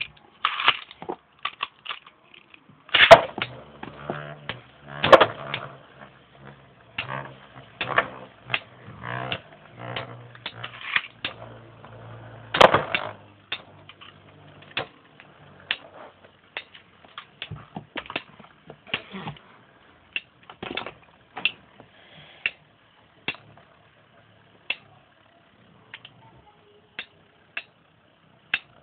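Two Metal Fight Beyblade spinning tops, Basalt Horogium and Hell Kerbecs, clashing in a plastic stadium. Their metal wheels strike each other in sharp clacks, loudest about three, five and thirteen seconds in, over a low hum in the first half. The hits grow sparser and lighter in the second half.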